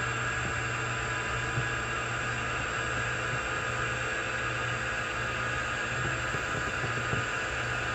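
OmniTurn CNC lathe running steadily: an even machine hum with several steady higher tones over it, unchanging throughout.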